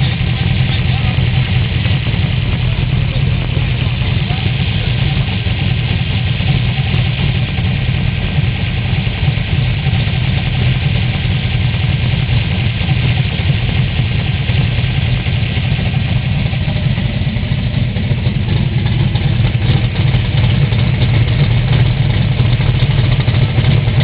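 Big-block Chevrolet V8 in a Nova race car running at a steady idle, a little louder near the end.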